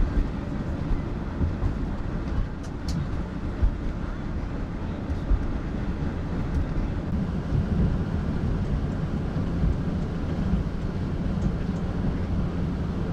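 Sprinter van driving at steady speed: a continuous low engine and road rumble.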